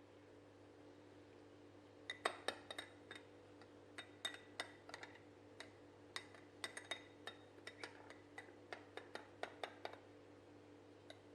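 Light clinking of dishes or glassware: a run of irregular small knocks, each with a brief ring, over a faint steady hum.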